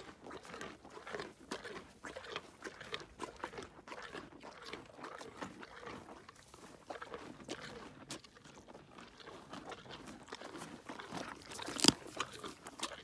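Pony chewing carrots close to the microphone: a steady run of irregular crunches, with one much louder sharp crunch near the end as a carrot is bitten from the hand.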